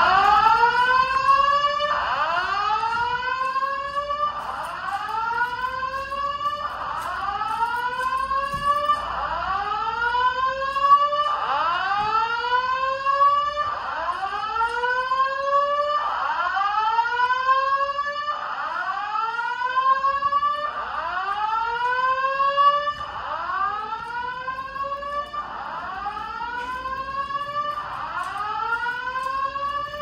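Simplex 4100U voice evacuation fire alarm speakers sounding a repeating whoop tone, each note a rising sweep. It becomes a little quieter about two-thirds of the way through.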